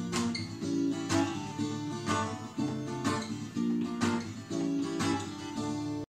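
Acoustic guitar strummed chords in a steady rhythm, the chords changing about once a second, with no singing.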